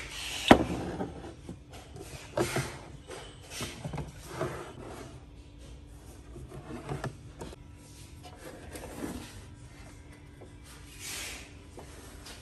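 Handling noises of glass and plastic containers being picked up and set down on a wooden shelf: a sharp knock about half a second in, then scattered lighter knocks and scrapes, with a longer rub near the end.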